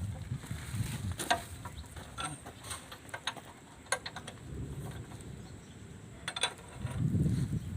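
Scattered sharp clicks and knocks of metal parts and tools during excavator track-chain work, with a low rumble near the end.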